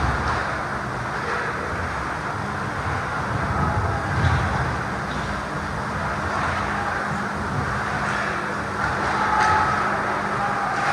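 Ice hockey rink ambience during play: a steady rumbling noise with a low hum, and a few faint distant knocks from the play at the far end of the ice.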